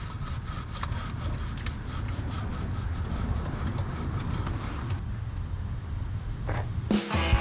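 Fast, regular scraping strokes over a steady low rumble. Guitar music comes in near the end.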